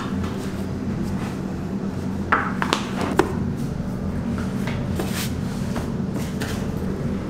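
Pizza dough being divided with a plastic dough scraper and set down on a board over a steady low hum of kitchen equipment. A few sharp knocks come about two to three seconds in, with lighter taps later.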